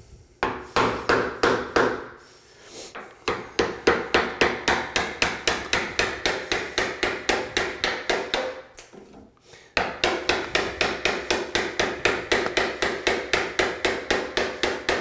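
Hammer tapping a wood chisel in quick, light, even strokes, about five a second, cutting a hinge mortise into the edge of a door. The tapping stops for about a second and a half past the middle, then starts again.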